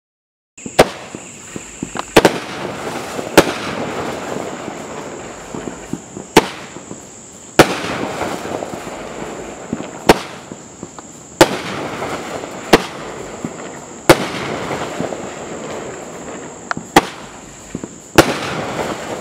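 A 'Red Fang' consumer 1.4G fireworks cake firing, a cake that shoots flaming balls with reports. About a dozen sharp bangs come one every second or two, with a hissing, crackling wash between them. It starts about a second in.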